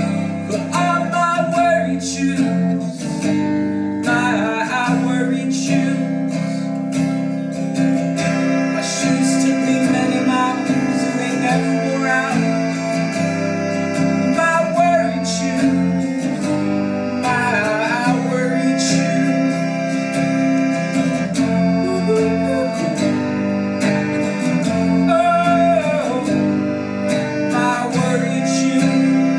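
Music: strummed acoustic guitar over a keyboard holding sustained chords, with a man singing.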